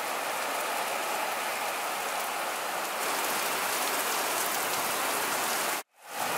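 Heavy rain falling steadily, an even hiss. It breaks off for an instant near the end, then resumes.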